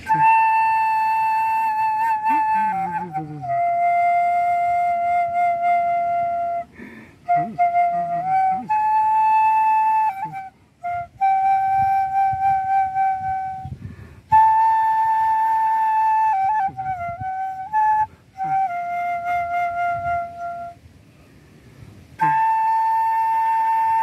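Sogeum, a small Korean bamboo transverse flute, playing a slow solo melody of long held notes, with short breaks between phrases.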